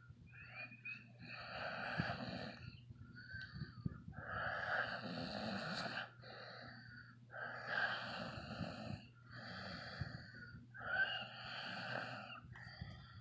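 A man snoring in his sleep: a series of long, noisy breaths, each lasting one to two seconds, with short gaps between them.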